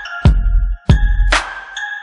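Background music: an electronic beat with deep kick drums and a sharper hit under held bell-like synth notes.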